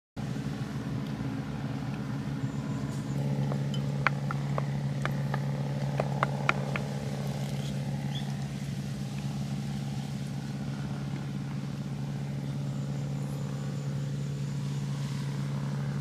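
A steady low machine hum that grows stronger about three seconds in, with a handful of light clicks between about four and seven seconds.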